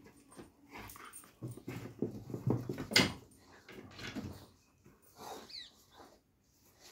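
Doberman pinscher making short, irregular breathy and vocal sounds. The loudest is a sharp burst about three seconds in, and a brief thin falling whine comes about five and a half seconds in.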